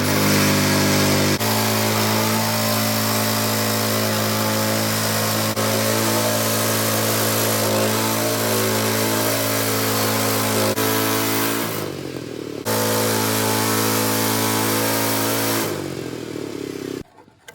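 Woodland Mills HM126 portable band sawmill running at high throttle as the band blade saws a log into a square fence post. The engine note is steady, dips briefly about twelve seconds in, and dies away near the end.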